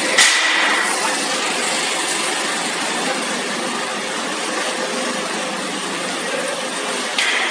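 A steady, even mechanical rushing noise with no clear rhythm, of the kind a running engine or workshop machinery makes.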